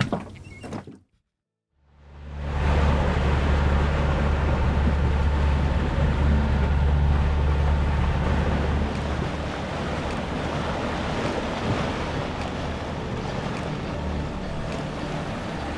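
Sailboat's inboard engine running steadily while motoring, with water rushing past the hull and some wind on the microphone. It comes in about two seconds in, after a music tail and a moment of silence, and gets a little quieter about nine seconds in.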